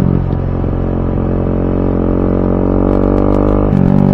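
Bajaj Pulsar NS200's single-cylinder engine through an aftermarket Akrapovic exhaust, running at a steady speed while riding; its note gets louder again near the end.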